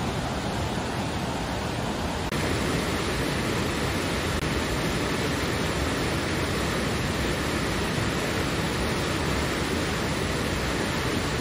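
Stream rushing over rocks in a stone-walled channel, a steady, even rush of water that grows a little louder about two seconds in.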